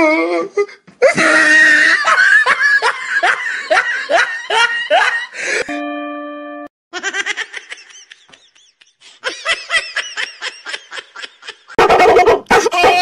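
Laughter in rhythmic bursts of about two a second, then a brief steady tone, then a second, higher, wavering laugh. Louder, denser sound starts suddenly near the end.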